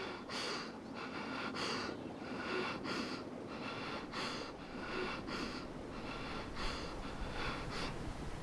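A person panting hard and fast, about two breaths a second, like someone running.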